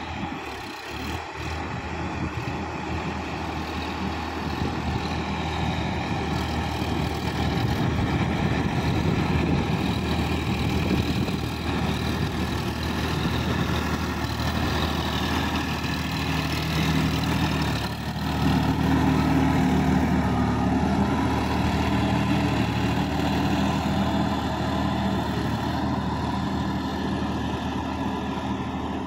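Sonalika DI-50 RX tractor's diesel engine running steadily under load as it churns through a flooded paddy field with a rotavator, growing louder as it comes close, loudest a little past the middle, then easing slightly as it turns away.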